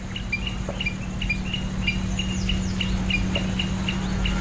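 Forest ambience of birds chirping: short high chirps in pairs, repeating about three times a second, with occasional falling whistles, over a low steady hum.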